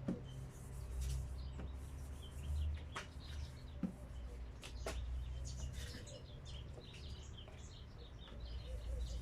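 Small birds chirping in the background, with a few sharp clicks and a steady low rumble underneath.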